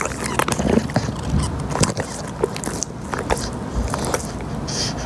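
English bulldog biting and chewing a ball: irregular clicks, crunches and scrapes of teeth on the ball.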